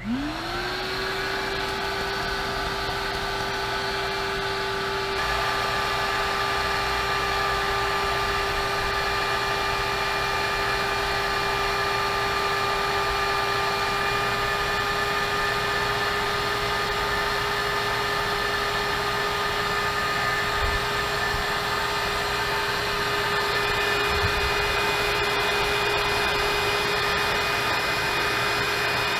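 Small wet/dry shop vacuum switching on, its motor whining up in pitch within the first second and then running steadily, a little louder about five seconds in. It is drawing warm engine oil out of the ATV's engine into a sealed container.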